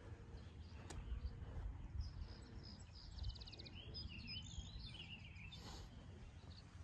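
Outdoor ambience: wind rumbling on the microphone, with birds chirping faintly from about two and a half seconds in, including a quick trill.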